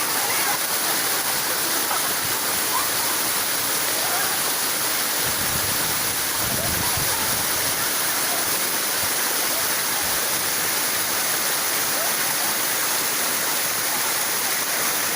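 Sri Gethuk waterfall rushing: a steady, unbroken hiss of falling water.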